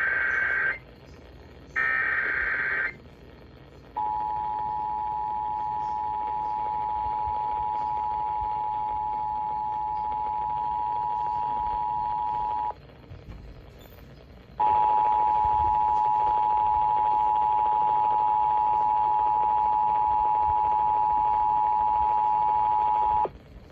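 Emergency Alert System activation broadcast on FM radio, announcing a severe thunderstorm warning: two short bursts of the warbling SAME data header, then the two-tone attention signal, a steady dual tone held about nine seconds. It breaks off for about two seconds and sounds again, a little louder, for about nine seconds more.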